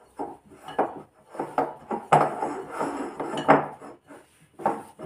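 Hands kneading ghee-rich gram-flour dough in a cut-glass bowl, the glass bowl knocking and rubbing on the stone counter in irregular strokes about twice a second.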